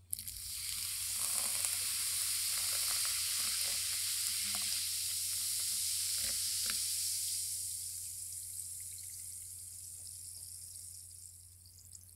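Carbonated cider soda poured into a bowl over gummy sweets, fizzing. The fizz starts suddenly, stays strong for about seven seconds, then dies away slowly as the foam settles.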